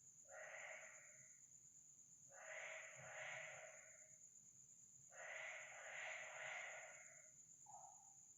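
Faint breathy hissing, like slow heavy breathing, in three swells of about one to two seconds each, the longest near the end, with a short softer puff after it, over a steady high-pitched whine.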